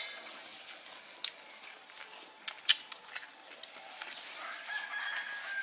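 A metal spoon clinking a few times against a ceramic plate, the sharpest clink about halfway through. Near the end, a drawn-out high animal call.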